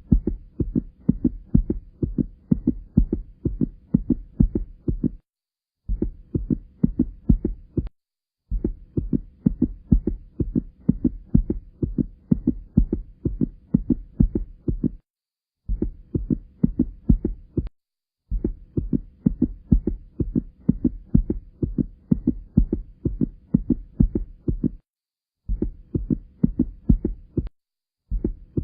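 Recorded heartbeat, a fast, even train of low thumping beats. It cuts to dead silence and restarts several times, as if the recording has been edited into separate clips.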